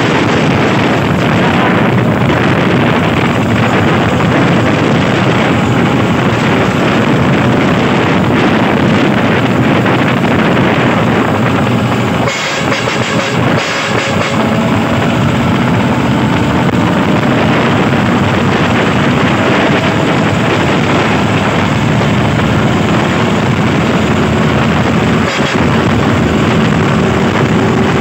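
Công nông farm truck's diesel engine running steadily under way on a test drive.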